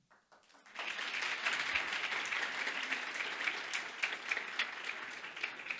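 Audience in a small hall applauding: a few scattered claps, then full applause from about a second in, easing slightly near the end.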